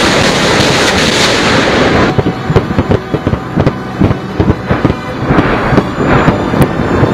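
Multiple rocket launcher salvo: a dense rushing roar of rockets firing, then from about two seconds in a rapid, irregular string of sharp blasts as the rockets land.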